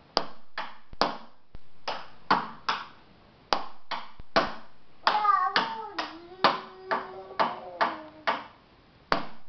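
A toddler beating on wooden boxes on a tabletop: about twenty sharp, uneven knocks, each ringing briefly. From about halfway in, a voice sings along for about three seconds.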